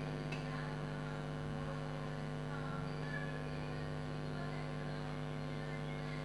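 Steady electrical hum made of several even, unchanging tones, with no other sound standing out above it.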